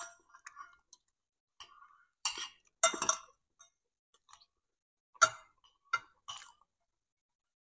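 Metal spoon and fork clinking and scraping on a plate, along with chewing: a handful of short, separate clinks and crunches, the loudest about two to three seconds in.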